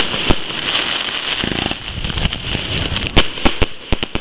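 Fireworks display going off: continuous dense crackling from bursting shells, with several sharp bangs, one right at the start and a quick cluster near the end.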